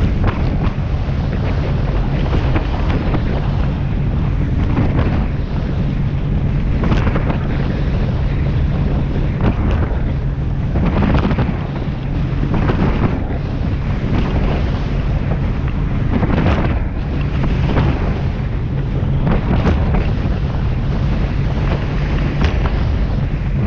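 Wind buffeting the microphone over the steady low drone of a rigid inflatable boat's engine running at speed, with rushes of splash and spray every few seconds as the hull slams through choppy waves.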